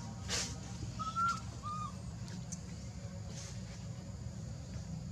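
Two short, clear, whistle-like animal calls about two thirds of a second apart, each held on one pitch, after a brief rustle, over a steady low rumble.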